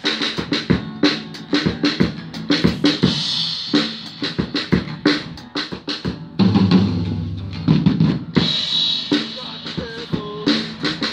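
A rock drum kit played live, with kick, snare and cymbal hits driving along under a strummed guitar. A little past halfway the drum hits drop away while a low guitar chord rings out for over a second, then a cymbal crash brings the beat back in.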